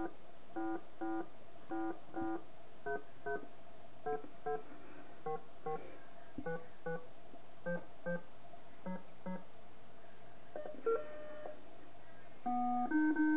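Doctor Love love-tester arcade machine beeping while its test runs: short electronic beeps in pairs, a pair about every three quarters of a second, changing pitch as they go. About eleven seconds in comes a quick run of tones, and near the end a louder electronic tune of held notes starts.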